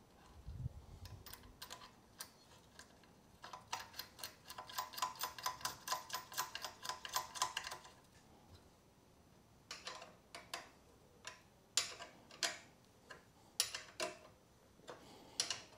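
Small metal clicks and taps from hands and a hex key working at the spark plug and plug lead of a vintage two-stroke mower engine. A dull bump about half a second in, then a run of quick, even clicks lasting about four seconds, then scattered sharper single clicks.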